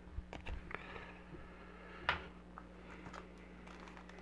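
Faint handling of trading cards and a sealed foil card pack: a few soft clicks and rustles, with one sharper tap about two seconds in, over a steady low hum.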